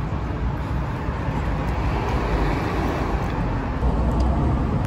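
Steady outdoor background noise: a low, even rumble of street traffic.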